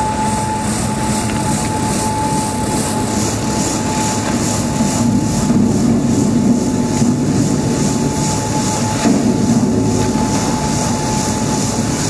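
Potato brush washing machine running: its rotating brush rollers and water sprays give a steady mechanical rumble with a constant whine. About five seconds in, a sackful of potatoes poured onto the rollers tumbles and knocks, swelling the noise for a few seconds, and again briefly near the end.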